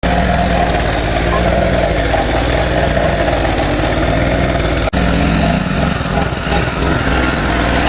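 An engine running steadily with a low hum, with a momentary dropout about five seconds in.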